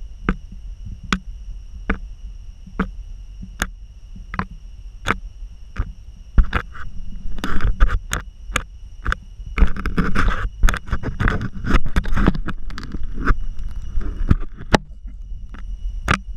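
Monitor lizard's snout knocking and scraping against the camera housing, a dense run of bumps and rubbing through the middle of the clip. Sharp clicks come about once a second, over a steady high whine.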